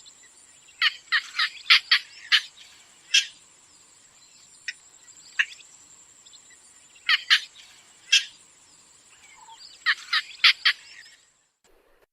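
A heron-family bird (bittern or night heron) giving short, sharp calls in quick clusters of four or five, with single calls between, over a faint steady high whine.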